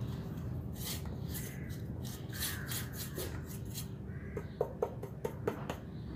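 Fingers scraping sticky ground plantain dough out of a stainless-steel mixer-grinder jar, with rice flour added to loosen it. Near the end comes a quick run of about six light knocks as the upturned jar is tapped over a glass bowl.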